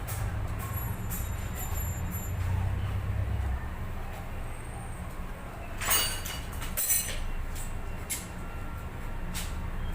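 Sharp metallic clinks of small bicycle hub parts being handled and set down, the two loudest about six and seven seconds in, over a low steady rumble that eases off about three and a half seconds in.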